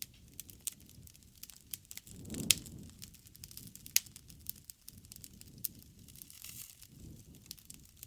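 Wood bonfire crackling: frequent sharp pops and snaps over a low rumble of the flames, the loudest pop about two and a half seconds in.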